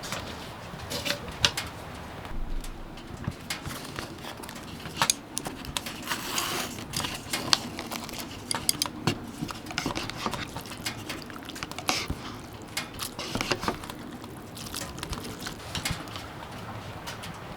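Irregular light clicks, taps and knocks, with faint rustling between them, as of small objects being handled.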